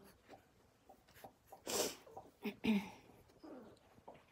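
Two short sneeze-like bursts of breath close to the microphone, a bit under a second apart, about halfway through.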